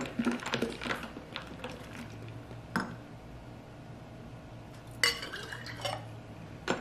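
Metal ladle stirring and clinking against a large glass jar of spinach water, with a sharp clink a little before the halfway point. Near the end a ladleful of the green drink is poured into a drinking glass.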